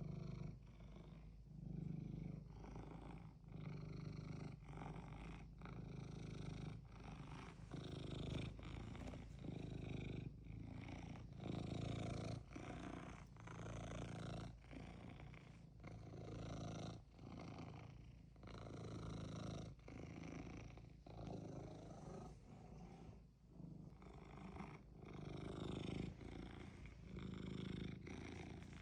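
Ragdoll cat purring steadily, the low rumble pulsing with its breathing, with a brief dip about once a second.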